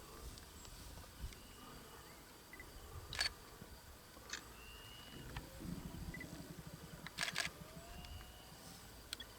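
Camera shutter clicks, a single one about three seconds in and a quick pair about seven seconds in, over quiet bush ambience with faint bird chirps. A low pulsing rumble sits in the middle.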